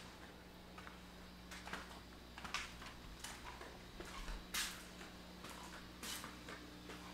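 Footsteps on pavement, short sharp steps about a second apart, over a steady low hum.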